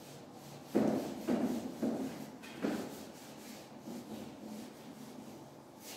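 Duster wiping marker off a whiteboard in short rubbing strokes, four stronger ones in the first three seconds and fainter ones after.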